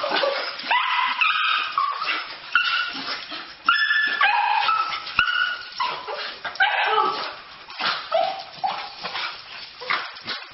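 Dogs whining and yipping in a rapid string of short, high-pitched cries: excited greeting of their owner.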